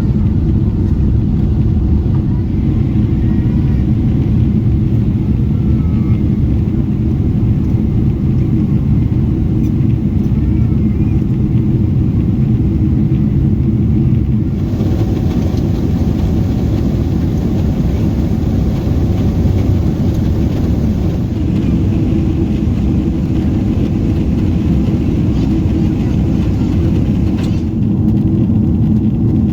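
Steady low cabin rumble of a Boeing 777-300ER with its GE90 engines running. About halfway through, a brighter hiss and a faint steady tone join the rumble, then drop away again near the end.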